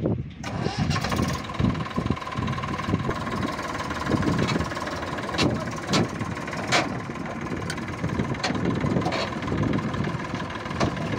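Massey Ferguson 241 DI tractor's three-cylinder diesel engine running steadily as the tractor is driven, with a few sharp knocks near the middle.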